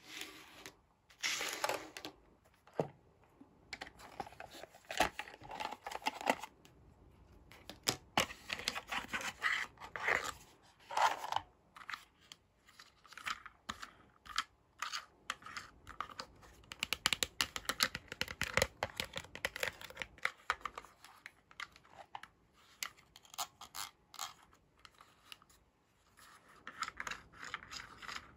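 Toy plastic parts being handled: many light clicks and taps of a hard plastic toy wagon body and its wheels, with several short spells of rustling and scraping.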